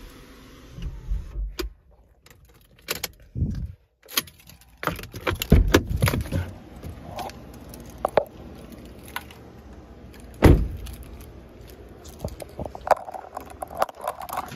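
Irregular clicks, rattles and knocks inside a car, with louder thumps about six seconds and ten and a half seconds in.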